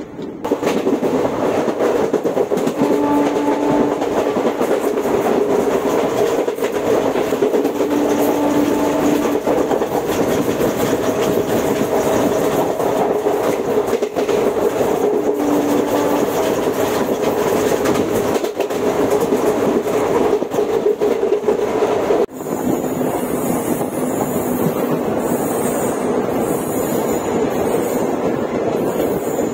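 ICF passenger coaches of an Indian Railways express running at speed, with loud steady rolling noise and wheels clattering over the rails. The sound changes abruptly about 22 seconds in, to a brighter, hissier running noise.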